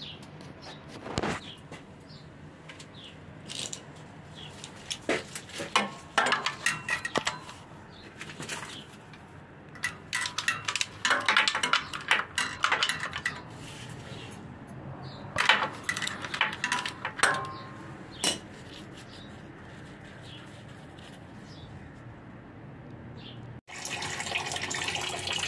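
Repeated bursts of metal clicking and clinking as a socket wrench loosens the 17 mm engine oil drain plug. Near the end the engine oil pours out of the drain hole in a steady stream.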